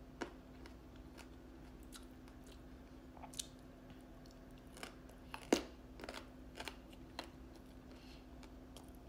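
Crisp bites and chewing of firm green mango slices: scattered crunches, the loudest about halfway through, over a faint steady hum.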